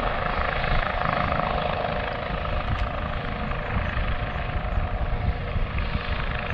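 Low-flying RAF training helicopters: steady rotor and engine noise with a constant whine running through it, over wind rumbling on the microphone.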